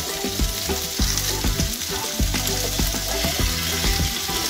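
Tagliatelle and sautéed prawns sizzling in a hot frying pan, with a steady hiss and irregular knocks and scrapes as a pasta server stirs the pasta into the pan.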